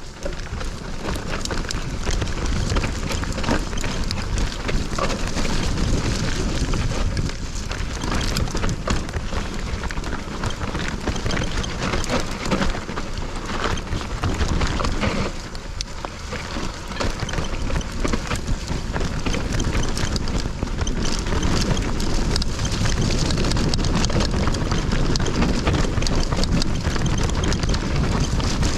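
Hardtail mountain bike riding fast down a dirt trail: wind buffeting the microphone, tyres rumbling over the ground and the bike rattling and knocking over bumps, with a short lull about halfway through.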